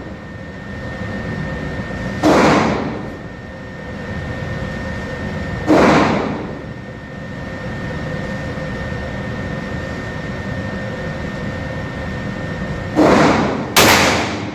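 Four 9mm pistol shots with a short reverberant tail: one about two seconds in, another near six seconds, then two less than a second apart near the end. A steady background hum runs under them.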